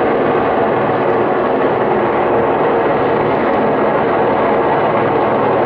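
Single-engine light helicopter flying low overhead, its rotor and engine sound loud and steady.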